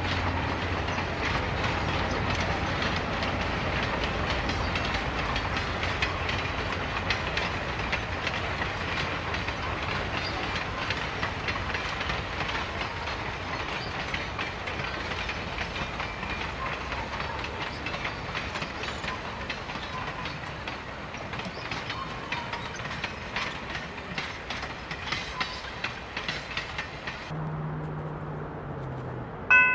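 Excursion train rolling past on the track, its wheels clicking rapidly over the rail joints, the rumble slowly fading as it moves away.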